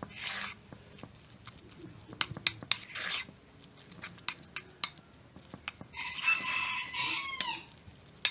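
A metal spoon clinks and scrapes against a ceramic bowl while stirring a thick fish-bait dough. About six seconds in, a rooster crows once in the background, a call of roughly a second and a half that ends on falling notes.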